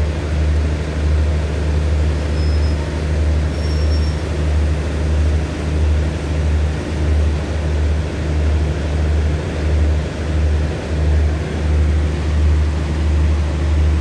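Diesel engine of a standing passenger train idling: a steady low hum that swells and dips about once a second.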